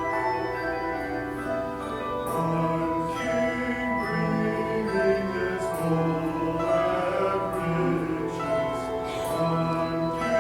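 Live choral music: a choir singing sustained lines with instrumental accompaniment and a low note recurring about every second and a half.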